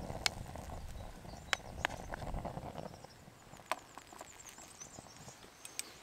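Wooden spoon stirring sliced onions in a small aluminium camping pan, with a light rustle and several sharp knocks of the spoon against the pan over the first three seconds, then only a few faint clicks.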